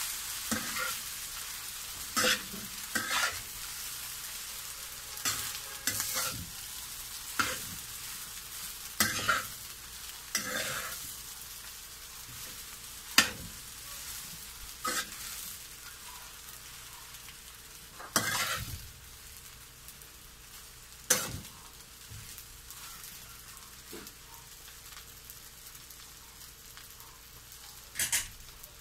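A metal spatula scraping and knocking against a wok as fried rice and lettuce are stir-fried, over a steady sizzle. The strokes come irregularly and thin out in the last third, leaving mostly the sizzle, which eases slightly.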